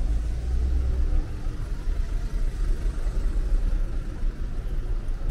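City street ambience with a low, steady rumble.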